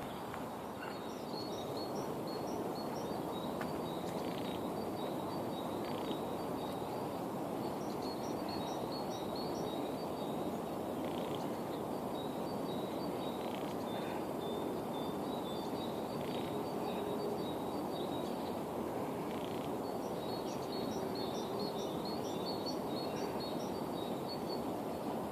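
Birds singing: repeated quick runs of short, high chirps with a few scattered calls, over steady background noise.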